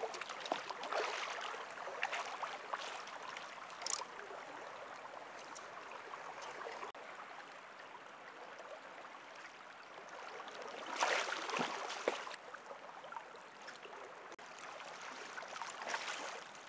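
Hooked trout splashing at the surface of a flowing river over the steady rush of the current, in irregular bursts that are loudest about eleven seconds in.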